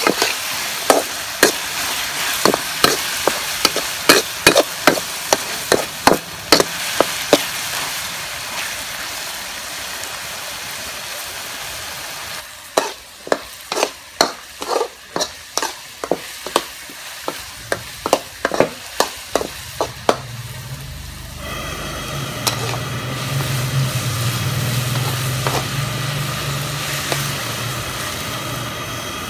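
Metal spatula scraping and knocking against a wok in runs of quick strokes while corn kernels, carrot and chili stir-fry, over steady sizzling as the sauce boils down on high heat. About two-thirds of the way through the stirring stops and a low steady engine-like hum comes in under the sizzle.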